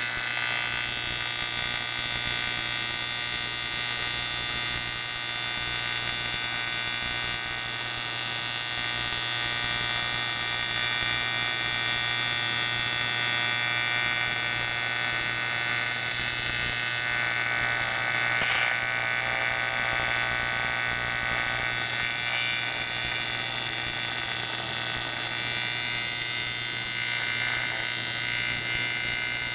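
TIG welding arc on an aluminium Harley Twin Cam cylinder head, buzzing and hissing steadily with a constant mains-frequency hum.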